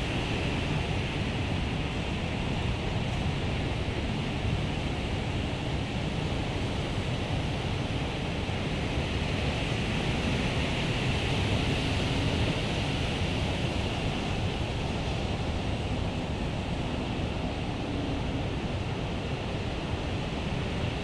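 Ocean surf breaking and washing onto a beach, a steady roar of waves, with wind rumbling on the microphone.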